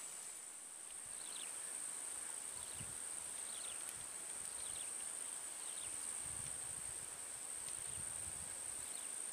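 Steady high-pitched drone of insects in swamp grass, with short falling chirps repeating about once a second over it.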